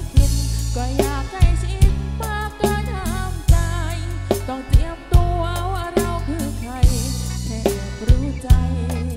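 A band playing a Thai pop song through a PA sound system: a wavering melody over held electric-bass notes and a drum kit keeping a steady beat of about two hits a second.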